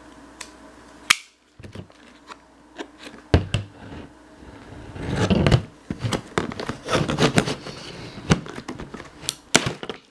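Clear plastic tackle boxes being handled: a few sharp plastic clicks and knocks, with rustling and scraping about five seconds in and again around seven to eight seconds.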